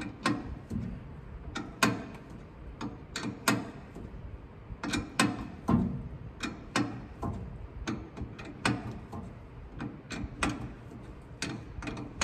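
Hand ratchet clicking in short, irregular strokes with occasional knocks of metal on metal, as bolts on the truck's drive shaft are worked.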